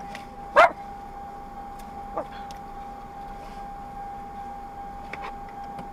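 A dog barks once, sharply, inside a moving car about half a second in. A thin, steady high tone and faint road noise run underneath.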